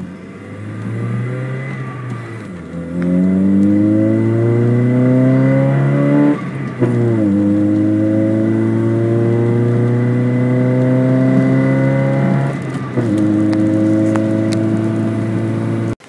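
Car engine heard from inside the cabin, accelerating hard with its pitch climbing steadily, then dropping at a gear change about six seconds in. After the shift it holds a loud, steady drone, with a second brief dip near the end.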